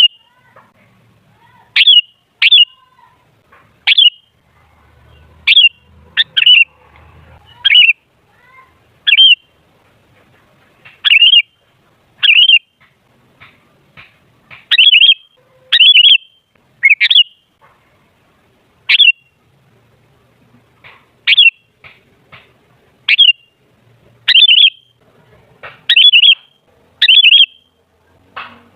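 Sooty-headed bulbul (kutilang) giving short, sharp calls, singly or in quick pairs, about every one to two seconds.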